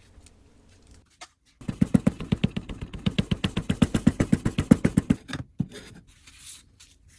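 Rapid, even dull tapping, about nine strokes a second for some three and a half seconds, from casting sand being packed into a mold flask around a pattern, followed by a few scattered knocks.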